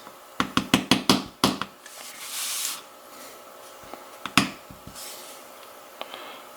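Small tools and lock parts being handled as the top pins of a Mul-T-Lock cylinder are removed: a quick run of about eight sharp clicks and taps, a brief hiss, then a few more scattered taps.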